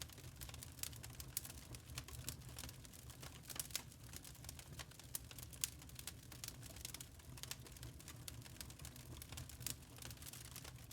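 Log fire crackling in a fireplace: many sharp, irregular pops and snaps of burning wood over a faint low rumble, with one louder pop about five and a half seconds in.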